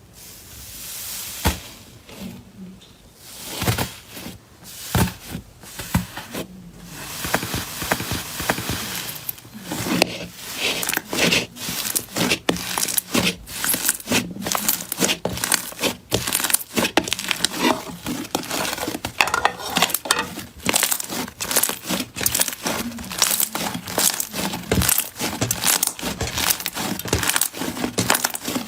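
Slime being squeezed, poked and stretched by hand, making crackling, popping clicks: scattered at first, then rapid and dense from about a third of the way in.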